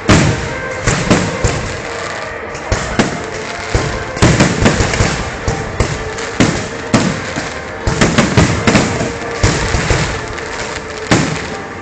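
Fireworks display going off: a string of sharp bangs and crackling, busiest about four seconds in and again around eight seconds.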